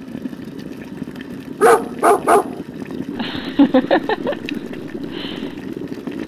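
A dog barks three times in quick succession, followed about a second later by a rapid run of short sounds. A steady low hum runs underneath.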